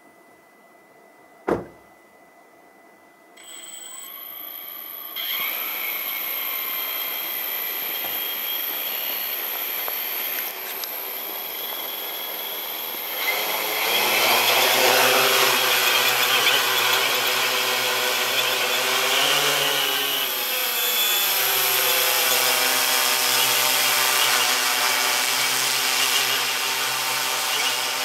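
Multirotor drone's electric motors and propellers: after a sharp click, the motors spin up to a whirring idle, then about halfway through speed up to a loud steady whir as the drone lifts off. The pitch wavers briefly as it settles into a hover.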